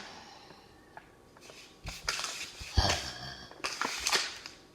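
Plastic toy packaging bag being torn open and crinkled by hand, rustling in several bursts over the second half with a few dull thumps.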